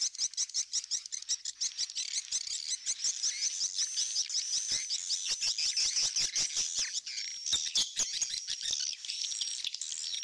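Recorded edible-nest swiftlet lure calls played back: a fast, continuous run of clicks mixed with high, rapid twittering chirps. Two call tracks, an old-style call and a roosting call, are layered over each other.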